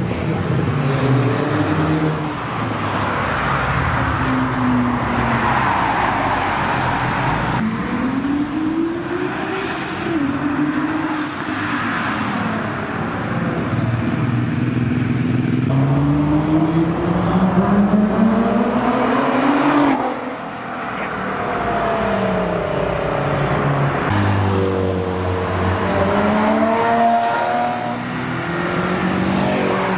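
Performance cars accelerating past one after another, engines revving up through the gears, the pitch rising and falling with each pass. The first is an Audi RS3's turbocharged five-cylinder pulling away.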